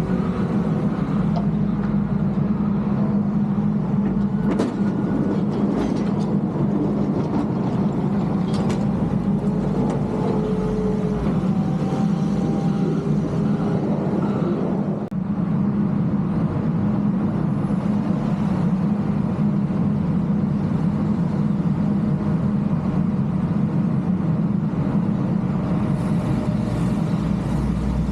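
Heavy snow-removal machinery running steadily with a deep engine drone, with a few faint knocks in the first third.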